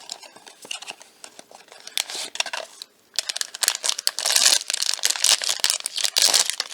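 Blind box packaging being torn open by hand: crinkling and tearing, light at first, then after a brief pause about three seconds in, louder and busier crinkling.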